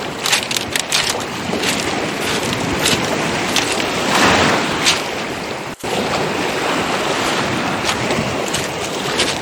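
Footsteps crunching on beach pebbles, a quick run of sharp clicks and scrapes, over the steady wash of waves. Wind buffets the microphone. The sound drops out for an instant a little past halfway.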